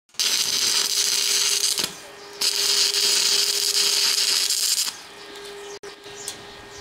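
Stick welding arc crackling and hissing in two runs, about a second and a half and then about two and a half seconds, as a steel bar is tack-welded to steel angle iron. A steady hum runs beneath.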